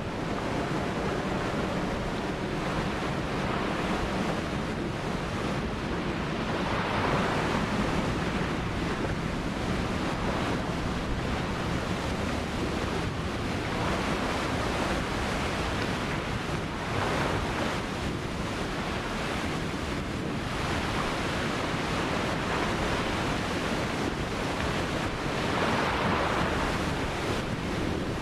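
Ocean surf: waves breaking and washing up the beach in a continuous rush, with a swell of louder breaking every few seconds. Wind rumbles on the microphone underneath.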